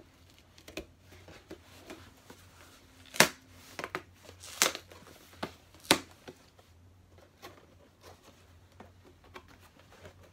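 Cardboard mailing box being torn open: a string of short, sharp rips and crackles, the three loudest between about three and six seconds in.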